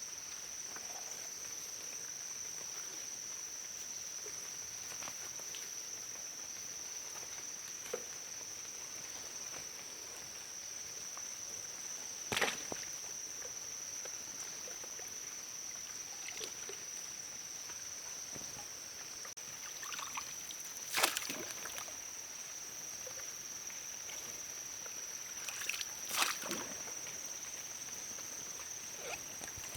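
Water sloshing and splashing three times, as someone moves through water. Behind it runs a steady high-pitched insect drone.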